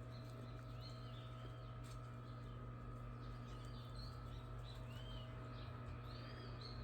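Faint chorus of short, high chirping calls, each rising and falling in pitch, scattered throughout over a steady low hum.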